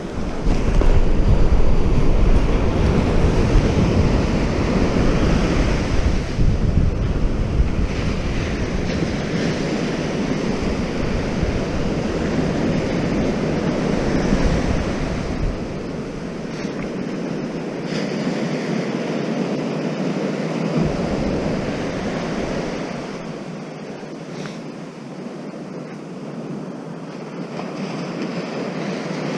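Waves breaking and washing on a surf beach, with wind buffeting the microphone as a low rumble that is heaviest in the first half.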